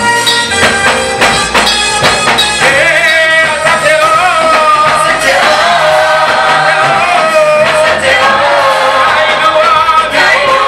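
Gospel praise music: a band with drums plays for the first couple of seconds, then singing voices come in over it.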